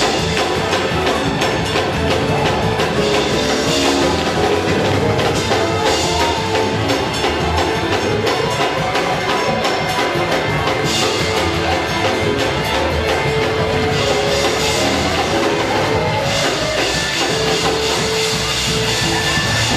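Loud, steady music with a quick drum and tambourine beat under held pitched notes.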